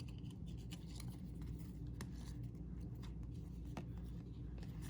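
Faint handling of trading cards: light scraping and a few soft clicks as the cards are slid and flipped, over a steady low hum.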